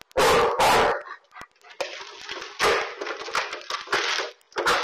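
A large dog barks twice, then horizontal window blinds clatter and rattle as a dog lunges into them and tangles in the slats.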